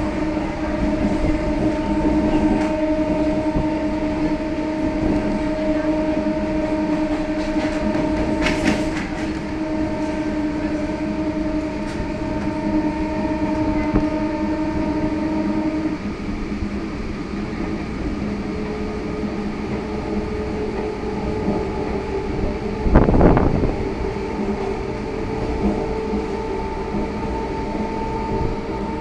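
Electric multiple-unit local train running, with its horn held in one long steady blast that cuts off sharply about sixteen seconds in. A different steady tone follows, with a brief loud rush about twenty-three seconds in.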